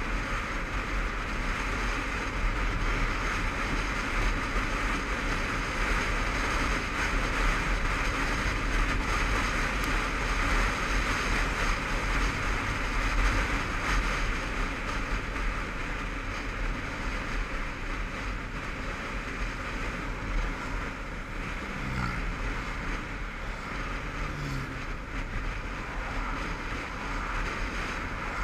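Steady wind rush and rumble over a helmet-mounted camera on a moving Honda CBF500 motorcycle, with the bike's running and road noise mixed in. It eases a little past the halfway mark.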